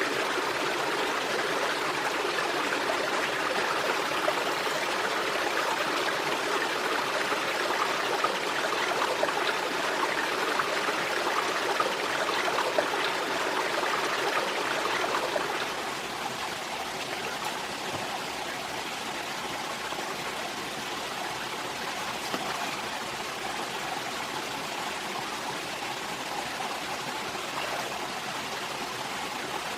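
Running stream water flowing and trickling steadily. About halfway through it drops to a softer level.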